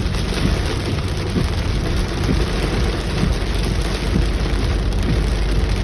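Heavy rain falling steadily, a dense even hiss with a constant low rumble underneath.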